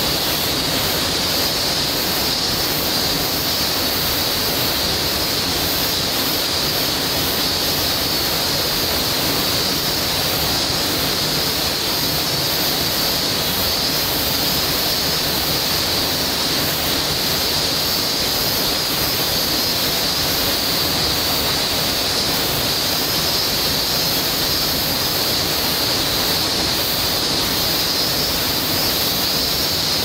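Waterfall plunging into a pool: a steady, even rush of falling water.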